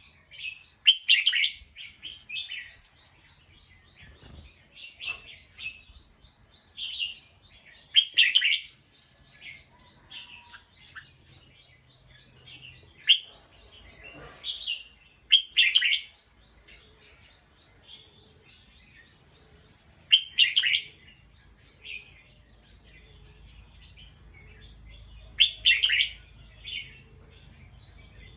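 A bulbul calling: short phrases of chirping notes every few seconds, with softer single notes in between.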